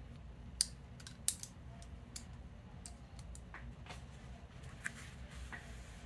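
Vintage Japanese carbon-fibre balisong (butterfly knife) being handled: sharp, irregular metal clicks of the handles, latch and pivot knocking together, the two loudest about half a second and a second and a quarter in.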